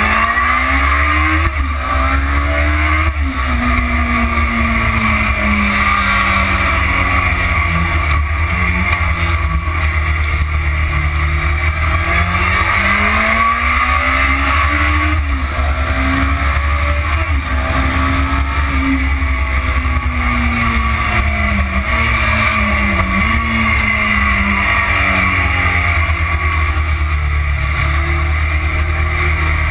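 Motorcycle engine heard from the onboard camera at track speed: the pitch climbs under throttle, drops suddenly at gear changes about 3 and 15 seconds in, and falls slowly while the bike slows for corners. A steady low rush of wind on the microphone runs beneath it.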